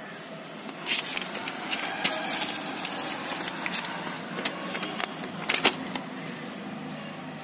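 Paper rustling and crinkling as a folded instruction leaflet is handled and unfolded, a flurry of sharp crackles starting about a second in and easing off near the end.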